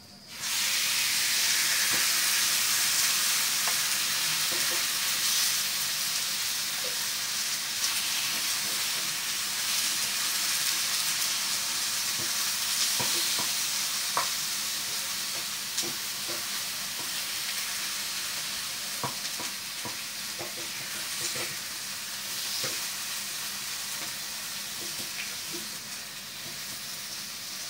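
Raw chicken pieces dropped into hot oil with sliced ginger in a frying pan: a loud sizzle that starts suddenly and slowly grows quieter. A wooden spatula taps and scrapes the pan now and then as the chicken is stirred.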